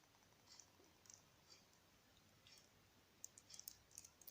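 Near silence with faint, scattered small clicks, more of them in the last second, from handling a bottle of glue while pouring it.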